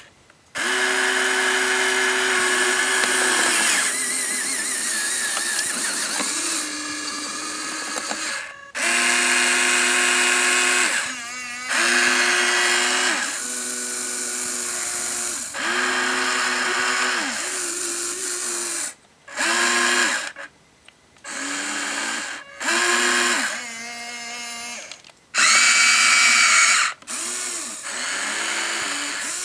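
Electric gear motors of a Huina 1593 radio-controlled excavator whining in repeated bursts of one to a few seconds, starting and stopping with short gaps as its functions are worked, the pitch changing a little from burst to burst.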